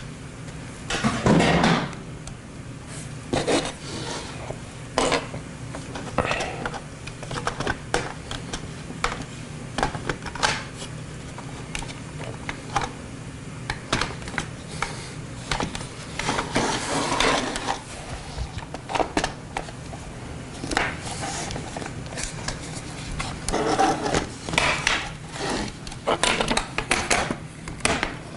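Plastic blaster shell and parts being handled: irregular clicks, knocks and short rattles of hard plastic pieces against each other and the work surface, with louder clusters about a second in, around the middle and near the end.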